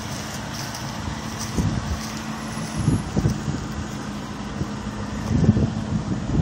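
Supercharged 4.6-litre V8 of a 2003 Ford Mustang Cobra idling steadily, with wind buffeting the microphone several times.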